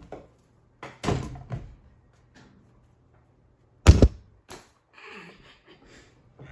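A few thuds and knocks, the loudest a sharp double knock about four seconds in.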